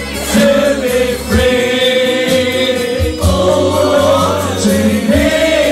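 A group of people singing together loudly in unison, holding long notes over music with a steady bass line.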